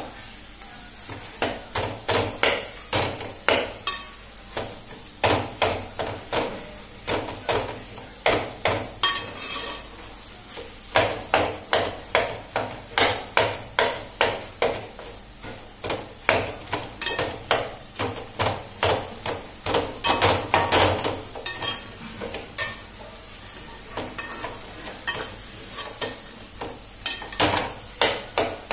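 Metal spoon scraping and knocking against an aluminium pot as potatoes are stir-fried, in repeated strokes about two a second with a few short pauses. The potatoes are stirred hard because they stick to the pot and soak up the oil.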